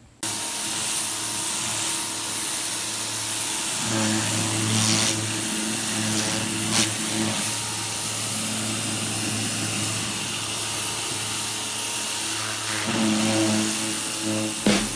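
Small electric pressure washer running, its motor and pump humming under the hiss of the water jet spraying a weathered wooden deck. It starts suddenly, the hum grows stronger about four seconds in and again near the end, and it cuts off just before the end.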